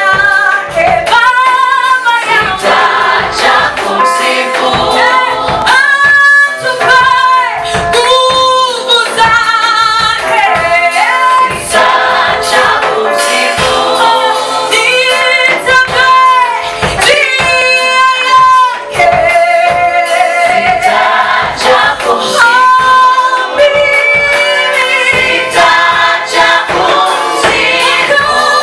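A choir singing a gospel praise-and-worship song, women's voices prominent, with long held notes sung with vibrato.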